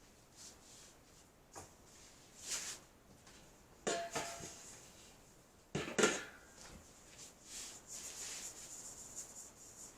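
Hard objects being handled and set down: two sharp knocks about four and six seconds in, the first with a short ring, among light rustling and scraping.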